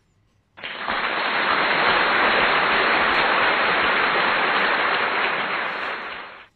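A loud, steady rushing noise, laid over the video as a sound effect with an on-screen subscribe-and-share animation; it starts abruptly about half a second in and cuts off suddenly near the end.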